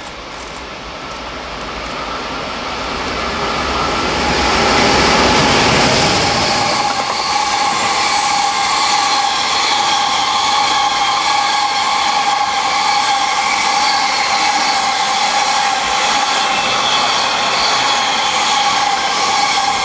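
Container freight train passing at speed behind an electric locomotive. The sound builds over the first five seconds as the locomotive approaches and goes by, then settles into a steady rush of the container wagons rolling past, with a steady whine in it.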